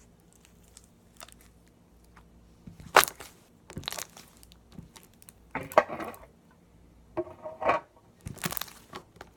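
Homemade jiggly slime being pressed and squeezed, letting out a series of sharp air-bubble pops and squelches, about five of them from three seconds in, the first the loudest.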